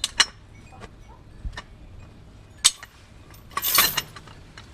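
Scattered sharp metallic clinks from a hi-lift farm jack and its lifting chain, then a louder rattle about three and a half seconds in.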